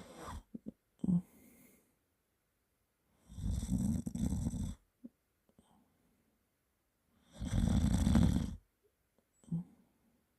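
A person snoring loudly in deep sleep: two long, low, rattling snores about four seconds apart, with a few short, fainter sounds in the first two seconds.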